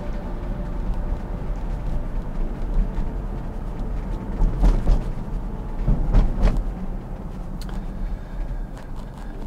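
Road noise inside the cabin of a Tesla Model Y electric SUV driving slowly: a steady low tyre rumble with no engine sound, and two brief louder swells about four and a half and six seconds in.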